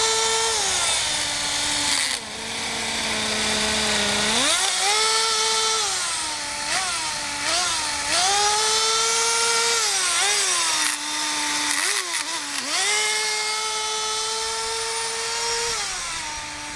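Small .11 nitro glow engine of a Kyosho Nitro Blizzard RC tracked vehicle revving up and down. It gives several long high-pitched runs at full throttle, broken by drops toward idle and short throttle blips. It stays in first gear because its two-speed transmission will not shift into second.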